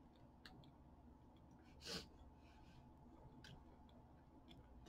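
Near silence with a low steady hum, a few faint clicks, and one short breathy exhale about two seconds in.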